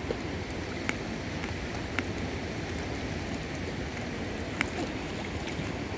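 Rushing river water, a steady broad rush, with a few short sharp clicks over it, the loudest about four and a half seconds in.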